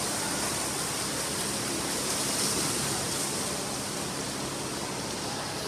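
Steady rushing wash of noise from a swimming race in an indoor pool: water splashing, blurred with the hall's echoing din, easing slightly in the second half.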